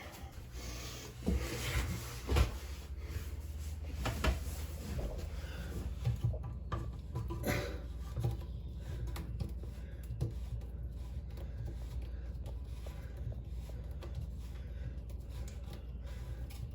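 Hands working plastic sink drain fittings inside a bathroom vanity cabinet: scattered knocks and rubbing, busiest in the first half, as pieces are twisted to tighten them.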